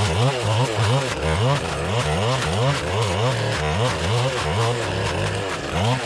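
Stihl FS-561C clearing saw's two-stroke engine running hard while its mulching blade cuts through blackberry bramble. The engine pitch rises and falls over and over as the blade is swung through the brush.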